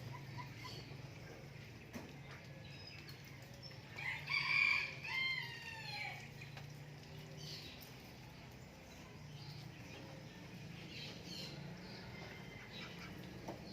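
A rooster crows once, a call of about two seconds starting about four seconds in. Faint bird chirps and a low steady hum sit underneath.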